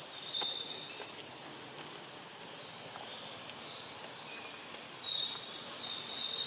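Outdoor background with short, thin, high-pitched chirps: a cluster in the first second and another from about five seconds in.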